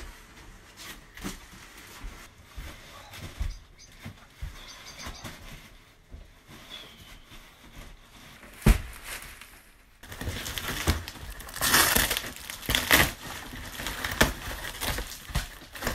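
Cardboard crackling and tearing as a large box is ripped open, loud from about two-thirds of the way in. Before that there are only faint handling knocks, and one sharp thump.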